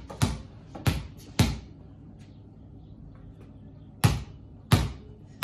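A basketball bouncing on a tiled floor in a one-handed dribble: three bounces about half a second apart, a pause of about two and a half seconds, then three more.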